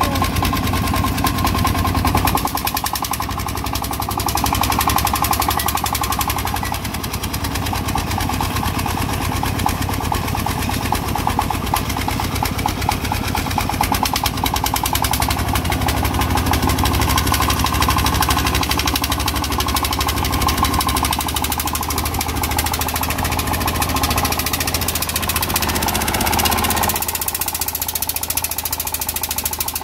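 Single-cylinder diesel engine of a công nông two-wheel tractor running hard with a fast, even knocking beat, labouring to pull its loaded cart out of the mud. The sound changes about 27 seconds in, its low rumble dropping away.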